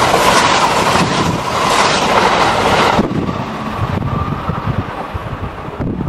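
Kintetsu 80000 series Hinotori limited express train passing close by at speed, a loud rush of rail and body noise. The rush drops off sharply about three seconds in as the last car goes by, leaving wind on the microphone.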